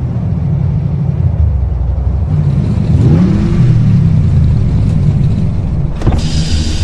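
Electro-house instrumental: a heavy, distorted synth bass with swooping pitch glides. A bright cymbal-like wash comes in near the end.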